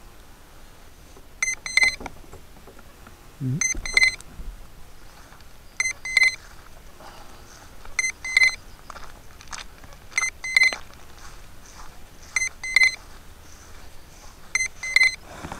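Groups of about three short, high electronic beeps, repeating about every two seconds, from a beeper on a camera-carrying quadcopter. Faint handling noise in between.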